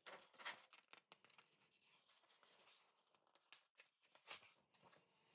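Faint rustling and scraping of a large artbook's paper pages being handled and turned, with a few soft sharp ticks.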